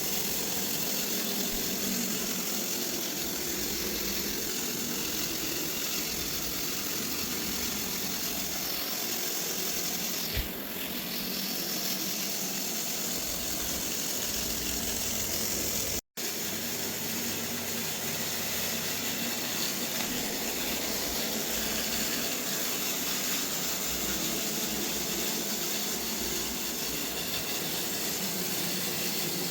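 Robot vacuum running, a steady whir of its suction motor and brushes with a high hiss on top; the sound cuts out for an instant about halfway through.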